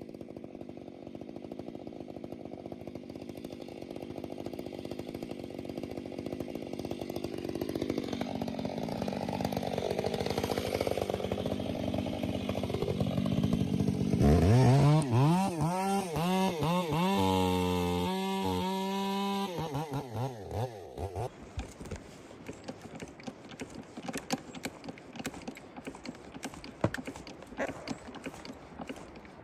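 Chainsaw running, growing louder over the first half. About halfway through it revs hard, its pitch swinging up and down again and again for several seconds, then it stops, leaving only faint scattered clicks and knocks.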